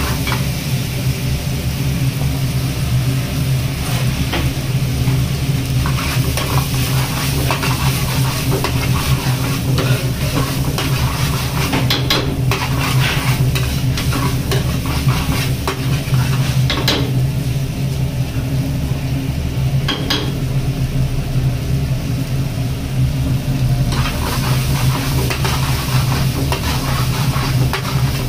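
Long steel ladle stirring and scraping thick paneer masala gravy around a metal frying pan, with the gravy sizzling, and a few sharper clinks of the ladle against the pan. A steady low hum runs underneath.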